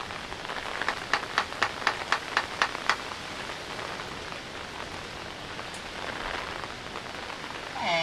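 Steady rain falling, with a pair of Laysan albatrosses in courtship display: a quick run of about nine sharp bill clacks, roughly four a second, between one and three seconds in. Right at the end one bird points its bill skyward and starts a drawn-out sky-call moan.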